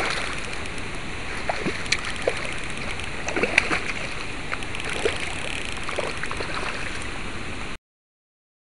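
Water splashing and sloshing at a pond's surface as a hooked fish thrashes, with scattered small plops and clicks. It cuts off suddenly near the end.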